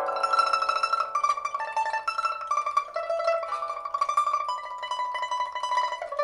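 Solo pipa (Chinese lute) with a suanzhi rosewood body, playing a slow melody in rapid tremolo, one held note after another. It has a newly replaced soundboard and frets, a steel first string and copper second to fourth strings, and is being played to test its sound after repair.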